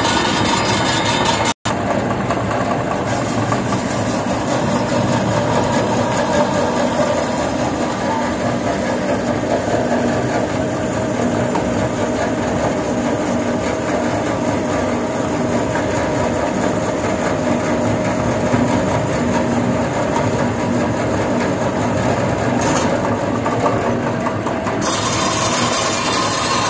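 Non-woven fabric roll cutting machine running: electric motors turning the fabric roll and driving the cutting blade, a loud steady machine hum. The sound cuts out for an instant about one and a half seconds in, and a sharper hiss joins near the end.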